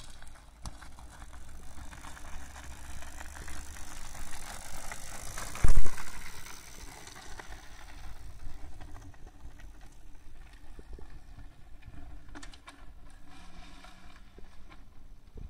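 Crunching and rattling of loose gravel on a dirt track, full of small clicks and crackles. There is one loud low thump about six seconds in.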